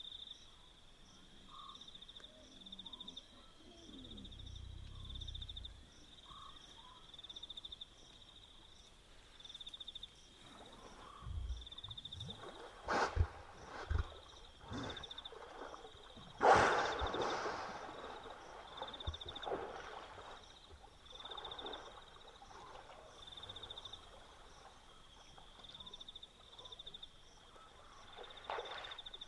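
Wild hippopotamus calling at night: a low rumble, then a run of loud grunting calls about halfway through, the loudest one breaking out and fading into softer grunts. A steady, evenly pulsing insect chirp and frog calls sound behind it.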